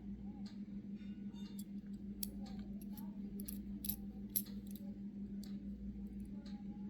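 Scattered light clicks and taps from tiny die-cast toy cars being handled, over a steady low hum; the sharpest click comes about four seconds in.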